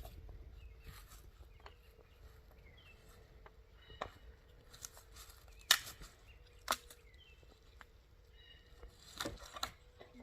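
Wood campfire crackling quietly, with a few sharp pops: one about four seconds in, a loud one near the middle, one a second later, and two close together near the end. Faint short chirps come and go between them.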